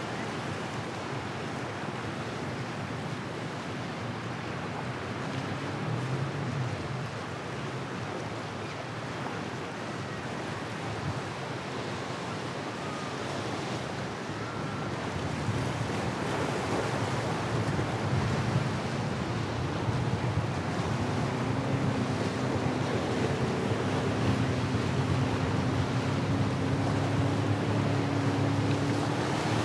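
Steady wind and surf noise on the microphone. From about halfway through, the hum of a powerboat's engines grows louder as the boat comes nearer.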